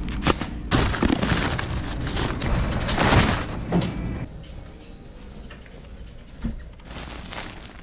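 Handling noise of grocery shopping: a wire shopping cart rattling and plastic packaging rustling as goods are put in, with the loudest clatter about three seconds in. It then drops to a quieter store background.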